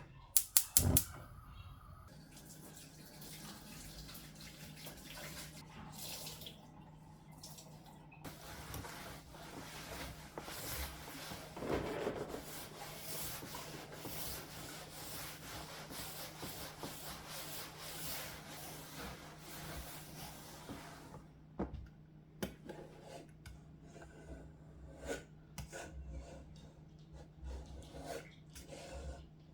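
Water running from a kitchen tap into a sink, a steady hiss for about twenty seconds before it stops. Scattered light clicks and knocks of kitchen work follow, over a faint steady low hum.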